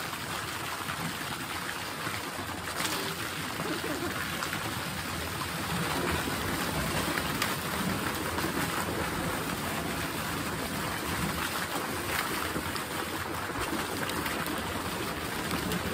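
A column of water pouring into a concrete fish pond, splashing steadily on the surface.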